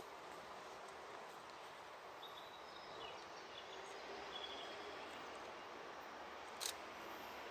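Faint steady outdoor background noise, with a few short high chirps from about two to four and a half seconds in and one sharp click near the end.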